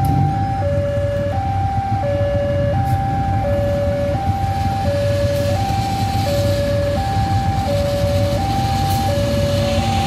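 GE CC206 diesel-electric locomotive running with a steady low engine rumble as it hauls a passenger train slowly past. Over it a two-tone electronic warning alarm sounds without pause, alternating a higher and a lower note about every 0.7 seconds.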